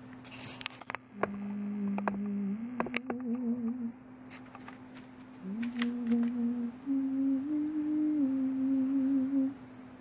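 A person humming a slow tune in a few long held notes, some with a wavering shake, the pitch stepping up over the phrase. A few light clicks and taps are scattered among the notes.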